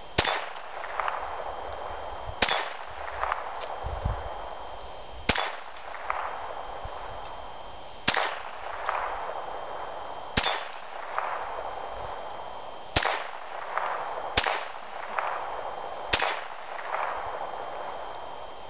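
Ruger Mark III Standard .22 LR pistol fired slowly, about eight sharp shots a couple of seconds apart. Most shots are followed under a second later by a fainter clang from bullets striking the steel targets.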